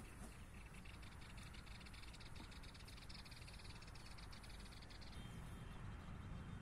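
A faint, rapid high-pitched trill of many quick ticks from a calling animal, stopping about five seconds in, over a low steady rumble.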